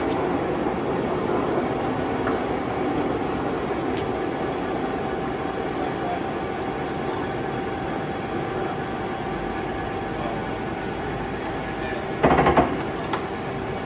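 Large Lansing engine lathe running under power with its feed engaged: a steady mechanical hum of gears and drive with a few held tones. A short, loud noise breaks in about twelve seconds in.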